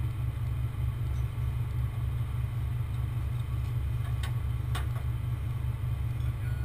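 Heavy truck engine idling steadily with a low, pulsing rumble, with two short clicks about a second apart just after the middle.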